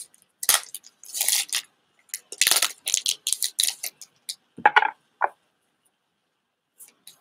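Foil booster-pack wrapper crinkling and tearing in gloved hands: a run of sharp crackles over the first four seconds, then two shorter, softer rustles as the cards come out.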